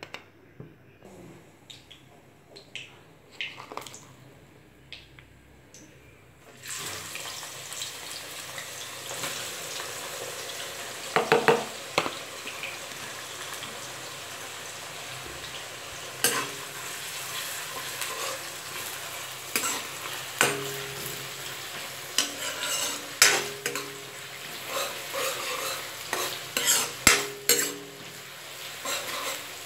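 Sliced onions frying in hot oil in a pan, stirred with a metal spoon: the sizzling jumps louder about seven seconds in and then keeps going steadily, while the spoon scrapes and knocks against the pan again and again.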